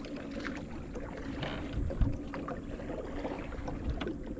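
Kayak paddle strokes on calm water: the blade dips and splashes, with low thumps and a sharp knock about two seconds in.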